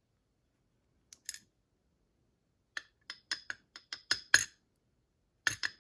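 Small metallic clicks and clinks as the pins and springs are taken out of a DORMA DC500 lock cylinder, chamber by chamber. There are two clicks about a second in, then a quick run of about eight over the next second and a half, and more near the end.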